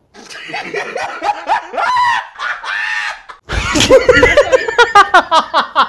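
Loud laughter with high, shrieking cries. About three and a half seconds in there is a heavy thump, followed by fast, pulsing laughter.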